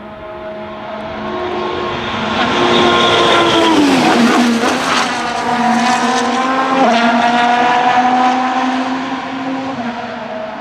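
Formula 1 car's turbocharged V6 engine at high revs passing trackside: the note climbs and grows louder, drops sharply about four seconds in as the car goes by, then holds a steadier, slightly fading note as it runs on down the track.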